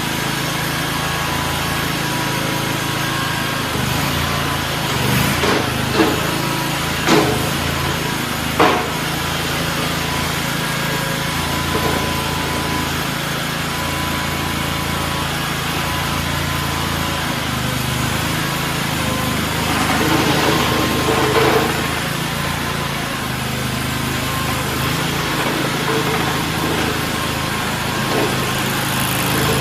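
Small 739cc gas engine of a ride-on mini skid steer running steadily. Three sharp knocks come a few seconds in, and the engine sound roughens briefly past the middle.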